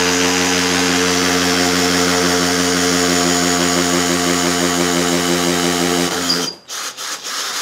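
Mollar MLR-CID20500-U cordless hammer drill with a brushed (carbon-brush) motor, running steadily in hammer mode at low speed while boring an 8 mm bit into a lightweight concrete (hebel) block. The motor cuts off about six seconds in, followed by a few short clatters.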